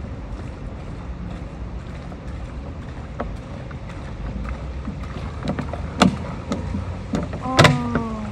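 Water sloshing and splashing in a small inflatable pool, with wind rumbling on the microphone. A few sharp taps come in the second half, and near the end there is a short, loud squeak falling in pitch.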